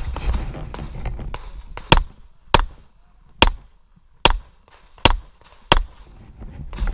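Six handgun shots in a steady string, about one every three-quarters of a second, beginning about two seconds in after some rustling handling noise.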